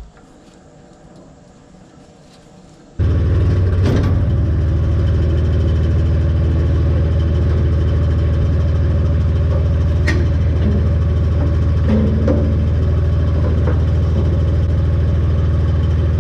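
An engine running steadily at idle, cutting in abruptly about three seconds in after a quiet start, with a few light metal clanks over it.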